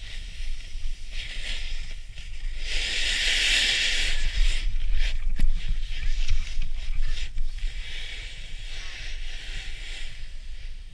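Snowboard sliding and scraping over packed, chopped snow, a rushing hiss that swells to its loudest a few seconds in during a turn, with wind buffeting the microphone as a low rumble.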